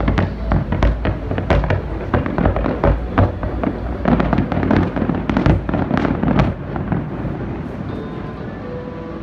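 Aerial fireworks shells bursting in a rapid volley of bangs and crackles. The bangs are densest and loudest from about four to six and a half seconds in, then die away near the end.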